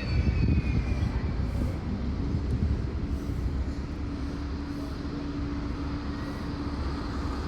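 Blackpool tram running on its rails: a high wheel squeal fades out in the first second, then a steady low rumble, with a steady hum coming in about three seconds in.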